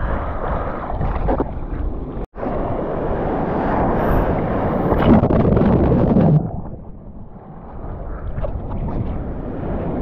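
Surf and wind on a camera microphone out in the sea, a steady rush of water noise. It cuts out for an instant twice near the start, and about six seconds in turns quieter and duller.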